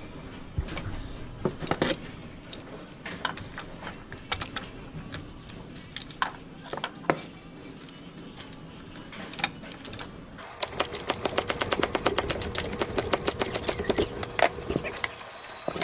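Scattered clinks and knocks as the oil filter housing is fitted back in. Then, about ten seconds in, a socket ratchet clicks rapidly and evenly for about five seconds as the housing is threaded down and tightened.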